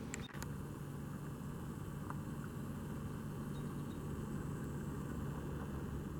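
Steady low engine hum, like an idling vehicle, with a few faint clicks.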